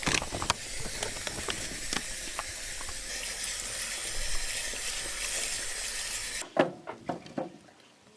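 A steady kitchen hiss, like running water or food sizzling, with a few clicks in it; it cuts off suddenly about six and a half seconds in, followed by a few knocks.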